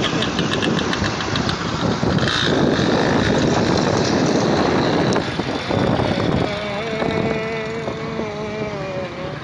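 A small motorcycle running along a road amid traffic, with heavy wind and road noise on the microphone of a moving vehicle. About two-thirds in, a wavering steady tone joins and lasts almost to the end.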